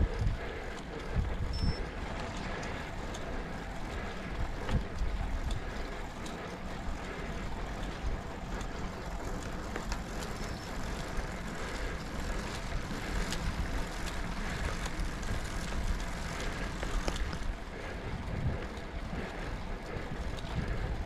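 Factor O2 road bike climbing on coarse asphalt: steady tyre and drivetrain rolling noise, with a fluctuating low rumble of wind on the microphone.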